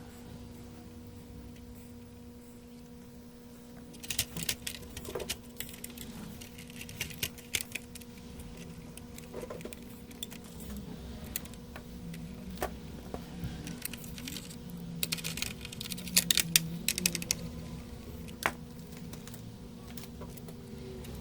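Light clicks and rattles of small hard parts being handled, coming in clusters from about four seconds in and again around fifteen seconds, over a steady faint electrical hum.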